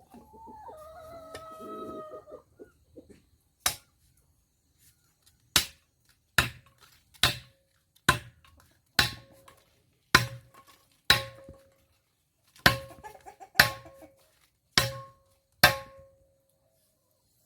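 A rooster crows once. About a dozen sharp hammer blows on metal follow, roughly one a second, each leaving a short metallic ring, as a work tool is being repaired.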